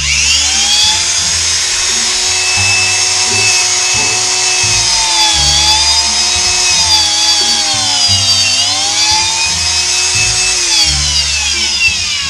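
A high-speed corded rotary tool spinning up to a loud whine, running at speed with its pitch sagging twice as it bites into a zip tie, then winding down near the end.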